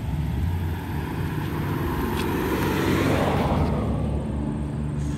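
A road vehicle passing by: its noise swells to a peak about three seconds in and fades away, over a steady low rumble.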